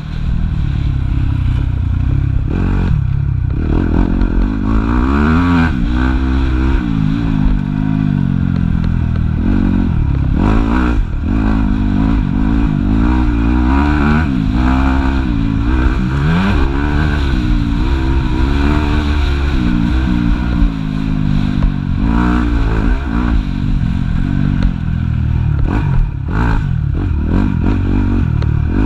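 Yamaha YZ250F motocross bike's single-cylinder four-stroke engine heard from on board, its pitch climbing and dropping again and again as the rider accelerates and backs off around a dirt track.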